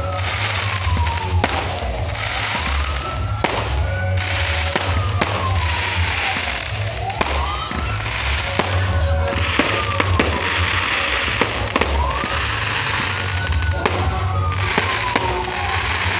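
Aerial fireworks going off in a continuous barrage of sharp bangs and crackling bursts. Behind them a siren wails, slowly rising and falling over and over.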